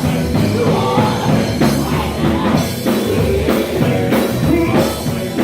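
Live gospel quartet band playing with drums, bass and keyboards, with singing.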